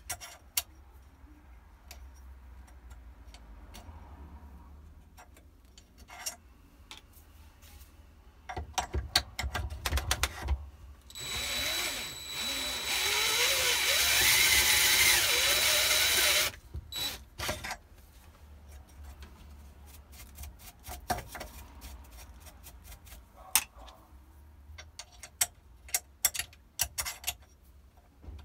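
Cordless drill running for about five seconds in the middle, turning a cutter into a steel pistol slide held in a vise, with a steady high whine over the noise. Sharp clicks and metal knocks from the tool and handling come before and after, clustered just before the drill starts.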